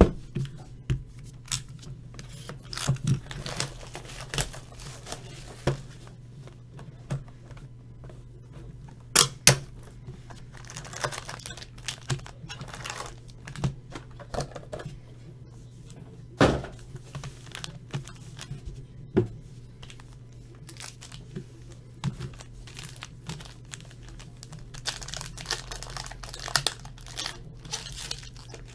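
Tearing and crinkling of the wrapping and cardboard as a sealed box of 2017 Panini Spectra football trading cards is opened and handled, with scattered sharp clicks and taps over a steady low hum.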